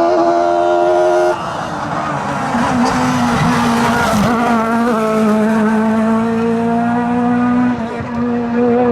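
Rally car engine at high revs, cut off abruptly about a second and a half in as the driver lifts. A noisy stretch with tyres squealing follows, then the engine settles into a steady high note.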